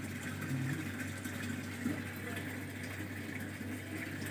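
Zanussi top-loading automatic washing machine running its cycle: a steady low hum with water running into the tub as it fills.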